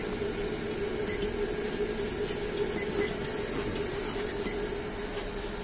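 Yamada Dobby A-30H 30-ton high-speed stamping press running, a steady mechanical hum with a hiss over it.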